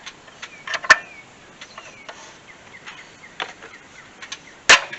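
Sharp metal knocks and clicks from tools working a seized, heat-soaked part loose on a Chevrolet 6.0 LS water pump. Loud strikes come about a second in and again near the end, with lighter taps in between.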